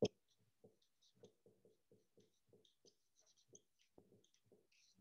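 Faint handwriting: a quick run of short scratchy strokes, about three a second, with a sharp tap at the very start.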